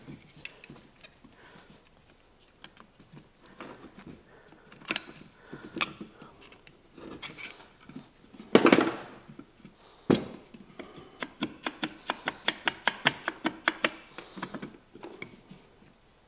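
Screwdriver prying at the metal motor housing of a Rockwell 368 circular saw, clicking and scraping against the metal: scattered clicks and knocks, one louder scrape a little past halfway, then a quick run of clicks, about three or four a second, for several seconds near the end.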